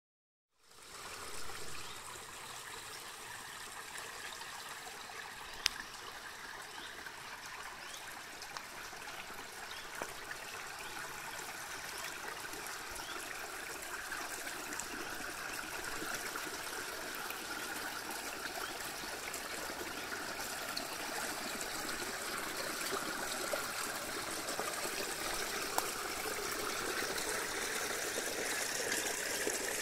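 Shallow karst stream trickling over stones and draining away between rocks into a swallow hole, growing gradually louder.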